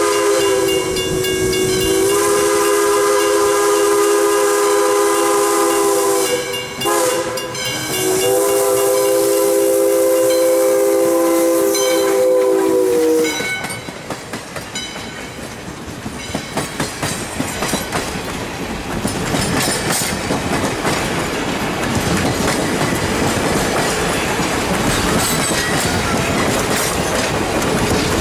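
Steam whistle of an ALCo-built 2-8-2 Mikado locomotive blowing a chord of several tones in long blasts, with a short break about seven seconds in, and stopping about thirteen seconds in. Then the passenger coaches roll past close by, wheels clicking over the rail joints.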